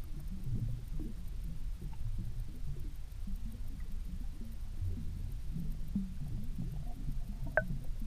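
Underwater microphone ambience: an irregular low rumbling with soft knocks, and one sharp click near the end.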